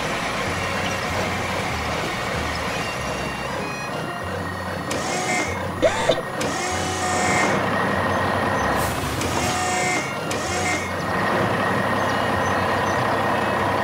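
Cartoon vehicle sound effects: a steady engine-like running noise, with two spells of mechanical whirring and hissing from a tractor's claw arm, about five and nine seconds in, and two sharp clicks around six seconds.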